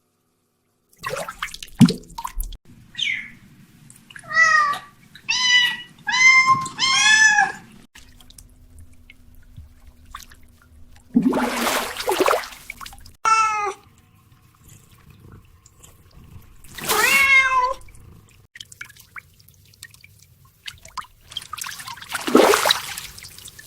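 A kitten meowing repeatedly: short calls that rise and fall in pitch, several in quick succession, with a few longer, louder cries between quieter gaps.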